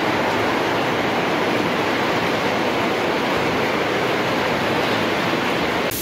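Large belt-driven rotating drum mills (ball mills) running: a loud, steady rushing noise with no clear rhythm, which cuts off just before the end.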